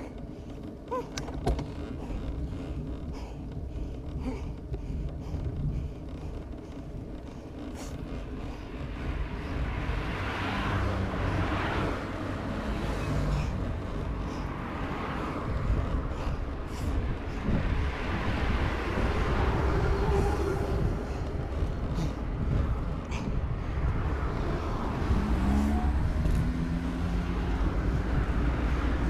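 Wind rushing over the camera on a road bike descending a mountain road, growing louder as the bike gains speed. Cars pass by, with a short rising engine note near the end.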